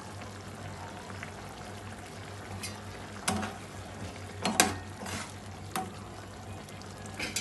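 A slotted metal spoon stirring vegetable oats in a metal pan, knocking and scraping against the pan several times from about two and a half seconds in, the loudest knocks about halfway through. Under it the oats simmer with a steady bubbling.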